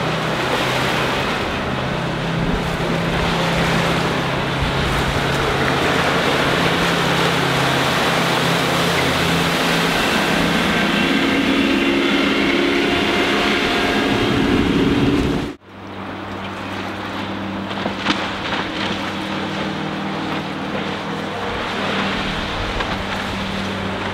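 Sterndrive sports cruiser's MerCruiser 5.0 MPI V8 running at speed, with the rush of water and spray off the hull. The engine note shifts about ten seconds in. The sound breaks off sharply about two-thirds of the way through, then carries on as a steadier, slightly quieter drone.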